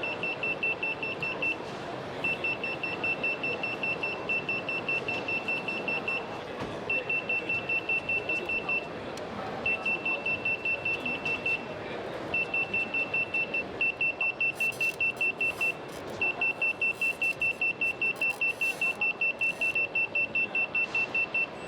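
Smart bike lock's anti-theft alarm sounding: a high-pitched rapid beeping, about four to five beeps a second, in runs of a few seconds broken by short pauses. It is the alarm the lock's gyro sensors set off when someone tries to take the bike. A steady background din runs underneath.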